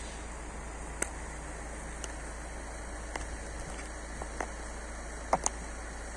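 Stiletto heels of patent leather knee boots clicking on asphalt in slow steps, about one click a second, over a steady hiss. The loudest two clicks come close together near the end.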